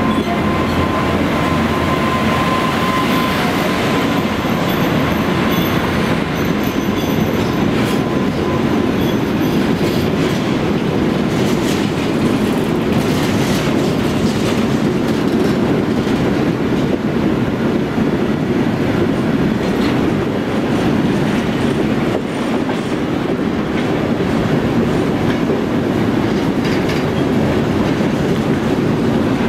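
Freight train of railway tank wagons rolling past at speed behind a PKP ET22 electric locomotive: a loud, steady rumble of wheels on rail. A high steady tone from the passing locomotive fades out over the first several seconds.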